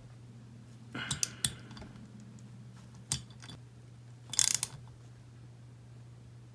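Small hand ratchet with a 3 mm Allen bit snugging exhaust studs down into an aluminium cylinder head. Short ratcheting bursts and clicks come about a second in, once near three seconds, and again about four and a half seconds in.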